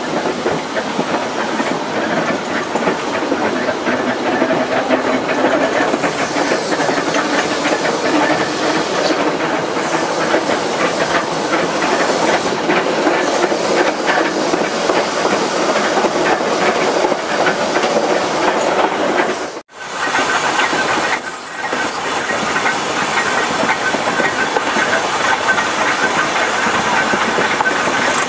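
Manx Electric Railway crossbench tramcars running along the track: a steady rumble and rapid clatter of wheels on rails. The sound drops out briefly about two-thirds of the way through, and two short high squeals follow just after.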